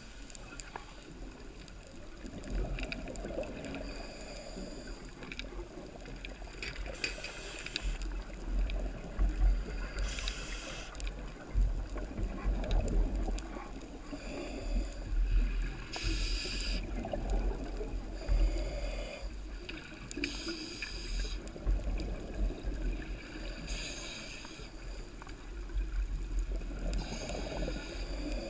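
Underwater sound picked up through a camera housing: a steady low rumble of water moving past, with swells every few seconds and a brief hiss about every three to four seconds.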